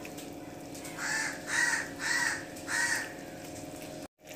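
A bird cawing four times in quick succession, each call about half a second long, over a steady low hum.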